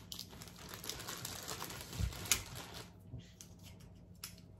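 Irregular light clicking and rustling of plastic as hands handle a plastic hand-soap pump bottle and a zip-top plastic bag, with a low thump about two seconds in and a sharper click just after.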